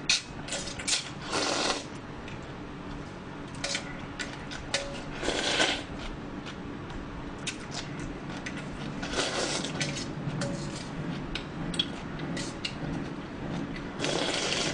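Cold naengmyeon broth being slurped and drunk from a tilted stainless steel bowl, in swells about a second long roughly every four seconds. Between them, a metal utensil clicks and taps against the steel bowl, some taps leaving a brief metallic ring.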